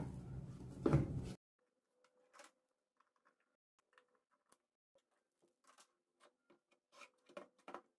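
A foil-lined panel is handled against a plastic radio case: a rustle and a couple of knocks for the first second or so, then it goes very quiet. After that come faint scattered clicks and taps as a screwdriver turns the panel's screw in, with a few more clicks near the end.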